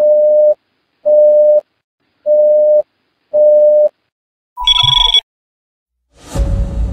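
Sci-fi 'incoming transmission' alert sound effect: four evenly spaced electronic beeps on one steady mid tone, about one a second, then a short, higher two-tone electronic chirp. Near the end a low rumble with a held tone comes in as intro music begins.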